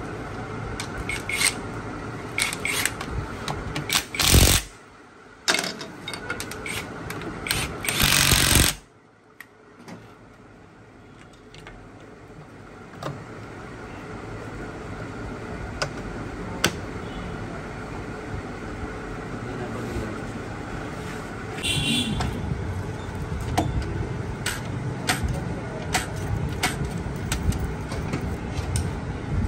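Workshop sounds of hand tools clicking and knocking against a motorcycle engine during disassembly, with two short, very loud bursts about four and eight seconds in.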